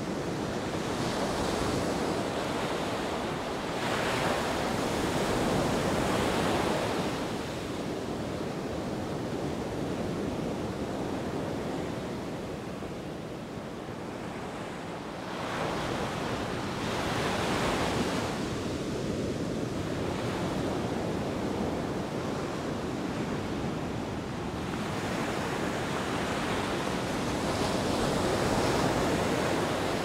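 Sea surf breaking and washing up a beach: a continuous rush of water that swells louder with each incoming wave, three big surges about ten seconds apart.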